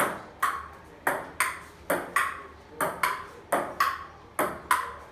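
Table tennis rally: a ping-pong ball clicking back and forth, about two to three sharp clicks a second, as it is struck by the paddles and bounces on a wooden dining table. Each click carries a brief ringing note.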